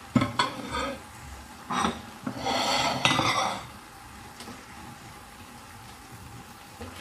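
A utensil stirring and clattering against a metal frying pan of chopped liver, onions and bell peppers, in several bursts over the first few seconds. After that only a faint steady sizzle of frying is left.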